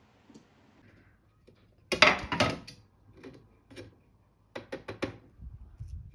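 Clear plastic food dehydrator trays clicking and clattering as they are lifted apart and handled: a loud clatter about two seconds in, a few single clicks, then a quick run of clicks and soft low knocks near the end.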